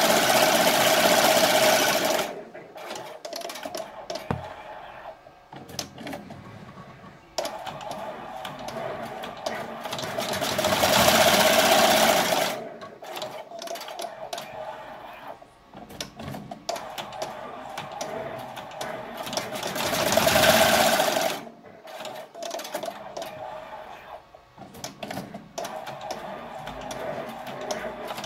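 Multi-needle embroidery machine stitching, its needle head clattering rapidly. It runs loud and steady at the start and in two later runs, with quieter, clicking stretches in between.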